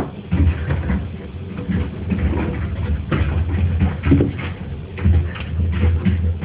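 A puppy romping boisterously, making irregular scuffling and knocking noises at uneven intervals, recorded through a mobile phone's microphone.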